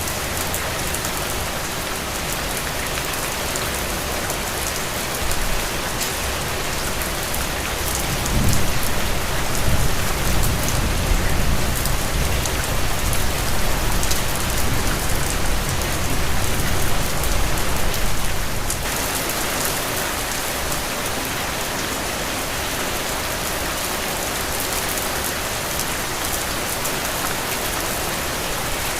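Heavy rain falling steadily. A long, low rumble of thunder builds about a third of the way in and dies away about two-thirds through.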